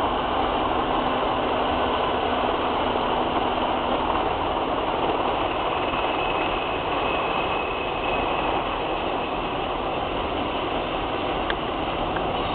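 Train running past at speed: a steady, continuous rumble of the locomotive and wheels on the rails, with a faint high wheel squeal about halfway through.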